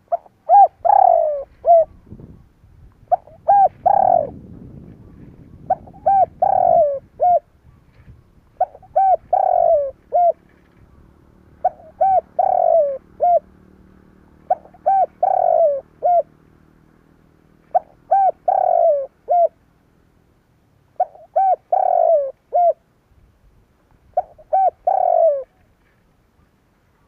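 Spotted dove singing: a short phrase of a few cooing notes, repeated about every three seconds, nine times.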